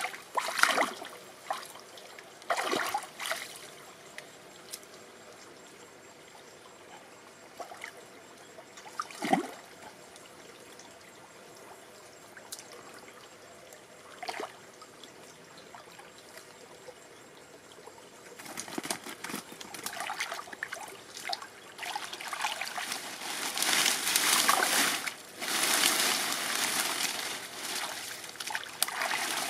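Hands splashing and sloshing in shallow, muddy stream water while groping for fish by hand. It starts with a few separate splashes, settles into a quieter trickling stretch, then turns into near-continuous sloshing through the second half.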